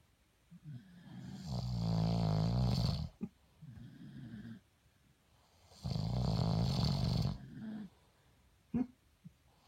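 Snoring: two long buzzy breaths in, each followed by a shorter, softer breath out, about four seconds apart, with a short click near the end.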